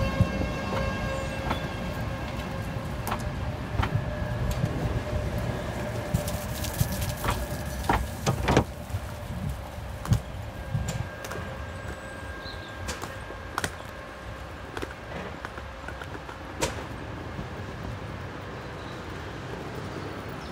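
Sheffield Supertram light-rail tram passing close and pulling away over pointwork: a steady whine from the tram with the sharp clicks and knocks of its wheels crossing rail joints and points, growing quieter as it draws off.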